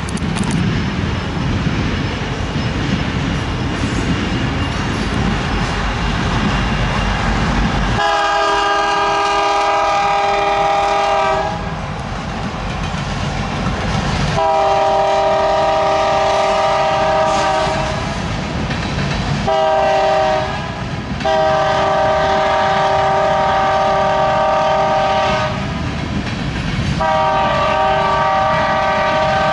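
Lead locomotive (a BNSF SD70MAC) sounding its multi-chime air horn in the grade-crossing pattern: long, long, short, long, then another long blast near the end. For the first several seconds, before the horn starts, there is a heavy low rumble of diesel locomotives and freight cars rolling past.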